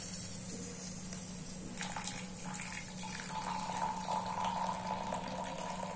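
Hot coffee poured from a stainless steel moka pot into a ceramic mug: a liquid stream that starts about two seconds in, its ringing pitch rising slightly as the mug fills, over a steady low hum.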